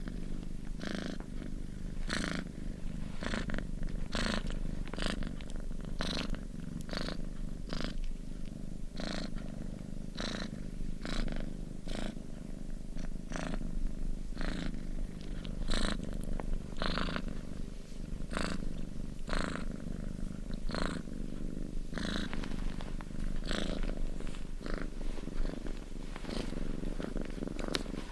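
Domestic cat purring steadily, with a regular breathy pulse about once a second.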